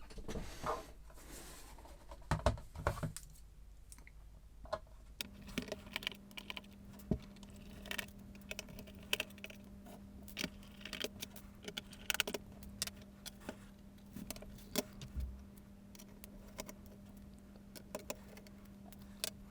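Scattered small clicks and clatters of a Sinclair ZX81 computer being handled and opened up on the bench, with a faint steady hum starting about five seconds in.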